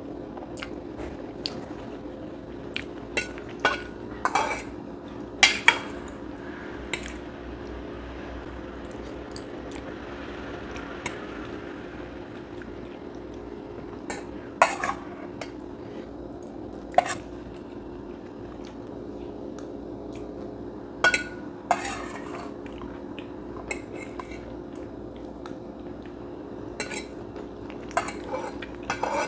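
Cutlery clinking and scraping against a dish as someone eats: scattered sharp clinks every second or few, over a steady low hum.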